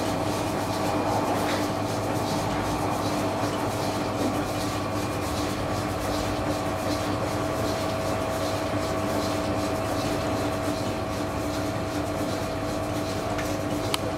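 Electric potter's wheel running steadily, its motor giving a constant hum with a faint whine while the wheel head spins. A single sharp click comes near the end.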